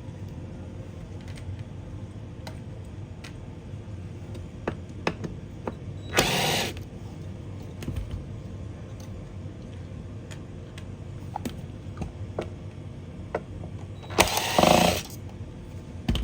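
Xbox Series X being taken apart by hand: scattered light clicks and taps of tools and plastic parts, with two short louder bursts of noise about six and fourteen seconds in.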